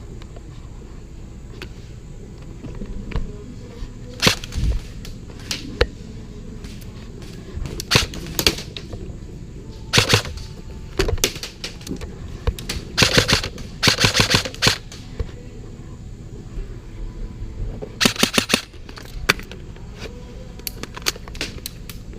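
Airsoft guns firing: scattered single shots and several short rapid bursts, the longest strings in the middle of the stretch.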